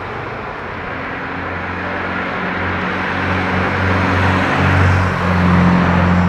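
Propeller airplane droning overhead: a steady low hum over a hiss that grows louder through the second half.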